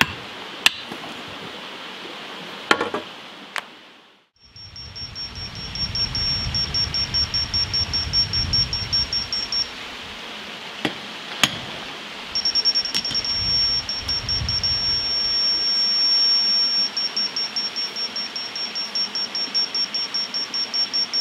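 A laser level receiver on a grade rod beeping rapidly, then, after a pause, settling into an almost continuous tone, the signal that the form is on grade. A few sharp knocks come before and between the beeps.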